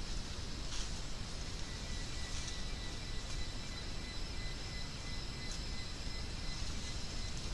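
Rainforest ambience: a steady low rumble and hiss, thin steady high insect tones, and a few short sharp chirps or clicks.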